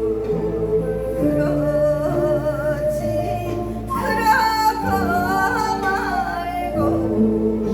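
Korean folk song (minyo) sung by a woman over instrumental accompaniment. She holds notes with a wide, wavering vibrato, and a louder, higher phrase comes in about halfway through.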